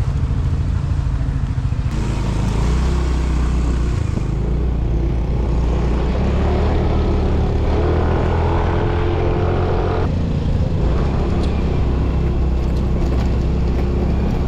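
An engine running steadily, its note shifting a few times, under a rushing noise.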